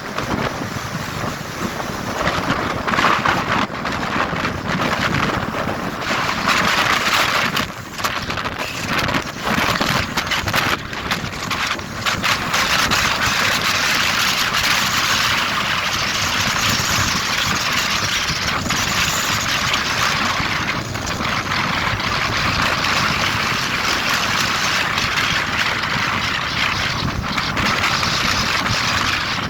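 Wind rushing over the microphone of a moving motorbike, mixed with engine and tyre noise at road speed; the rush grows steadier and a little louder partway through.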